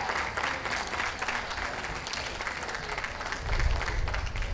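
Crowd applauding steadily, with a low rumble swelling up about three and a half seconds in.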